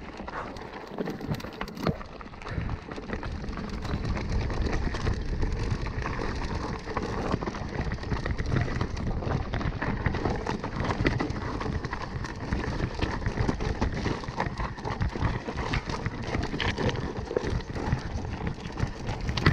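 Mountain bike rolling down a steep, loose, rocky singletrack: the tyres crunch over stones and the bike rattles, making a continuous dense clatter of small knocks. It is quieter for the first few seconds, then grows louder and steadier.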